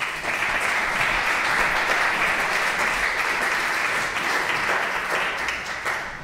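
Audience applauding: a steady clatter of many hands clapping that starts all at once and dies away near the end.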